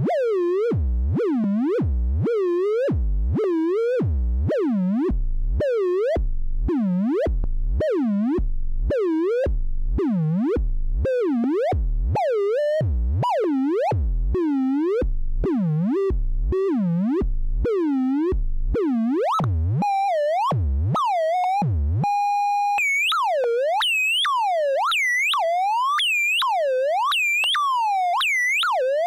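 Modular synthesizer oscillator whose pitch is swept by LFO sine waves mixed and rectified in an Earwig rectifying mixer: a repeating swoop that dives low and climbs back, about one and a half times a second. About 22 seconds in it holds one steady tone briefly, then goes on with higher, sharper swoops as the mixer's bias is changed.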